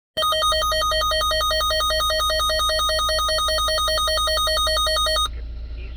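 Electronic emergency alert tone: a loud, buzzy warble that flips rapidly between two pitches several times a second, like a telephone ring, for about five seconds before cutting off suddenly.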